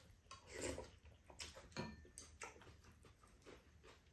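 Faint eating sounds: glass noodles (japchae) being chewed, with scattered light clicks of chopsticks against the pot and bowls.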